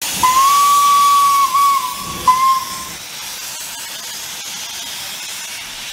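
Steam locomotive's whistle sounding one long blast and then a short one, over a loud hiss of escaping steam that carries on after the whistle stops.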